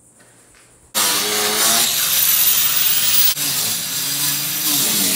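Power tool cutting USG Durock cement board: a loud, noisy cutting sound that starts suddenly about a second in, with the motor's pitch wavering under load and a momentary break just after three seconds in.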